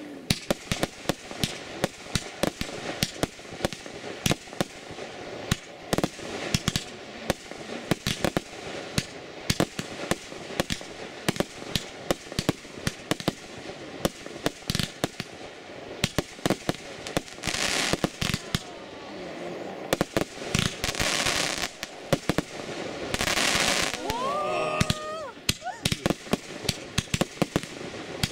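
Fireworks barrage: a rapid, irregular string of bangs and crackles from aerial shells bursting, with three hissing rushes of about a second each in the second half.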